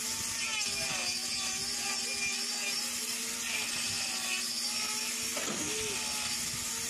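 Handheld electric hoof grinder (angle grinder with a trimming disc) running against a cow's hoof: a steady motor whine that wavers a little in pitch as the disc bears on the horn, over a high grinding hiss.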